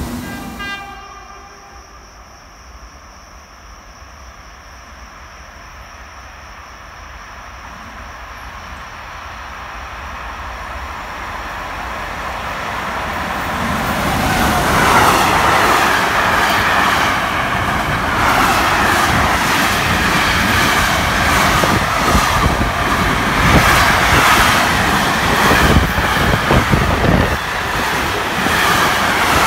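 Electric freight train, an E483 locomotive hauling container and tank-container wagons, approaching and passing at speed. It begins as a low rumble that swells over about twelve seconds. From about halfway through comes the loud, steady rush and clatter of wagon wheels on the rails as the train goes by.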